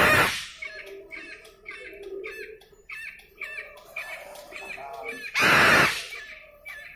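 Cockatoo screeching: one harsh scream at the start and another, the loudest, about five and a half seconds in, with short chirping calls repeated about twice a second between them.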